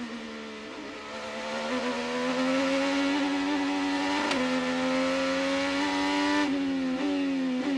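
Chevrolet 2.2-litre twin-turbocharged V6 of an IndyCar heard onboard, accelerating hard out of a corner. The engine note climbs, then drops sharply with an upshift about four seconds in and again about six and a half seconds in.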